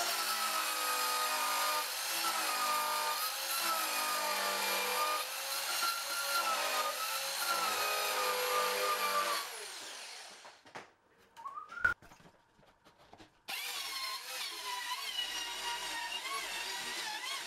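Rockwell Versacut compact circular saw cutting lengthwise through flooring planks, its motor whine wavering under load. About ten seconds in it winds down and stops, a sharp click follows, and a few seconds later the saw is running and cutting again.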